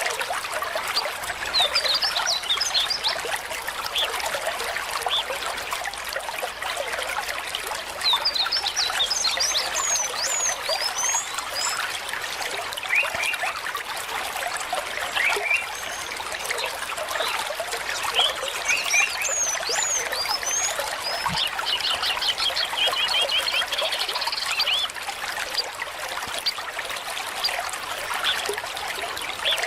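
Water trickling steadily, with small birds chirping in several short bursts of quick high notes and a rapid trill about three quarters of the way through.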